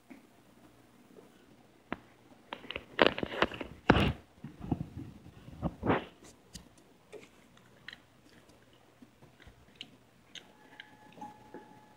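Elevator buttons being pressed by hand: a cluster of clicks, knocks and rustling from fingers and the handheld phone at the metal button panel, then a few light clicks and a faint steady tone near the end.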